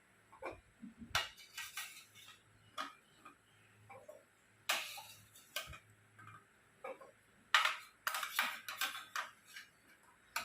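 Irregular light clicks and taps of kitchen work, often in small quick clusters: onion pieces being handled and put into a container.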